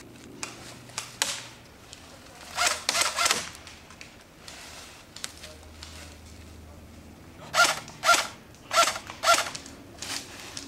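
Airsoft guns firing single shots: a short group of about three shots, then a string of about five roughly half a second apart in the second half.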